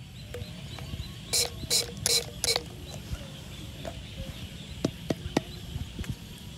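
Four quick hissing squirts from a hand-pump spray bottle, spraying alcohol into the chamber of a homemade alcohol gun, followed a couple of seconds later by three sharp clicks.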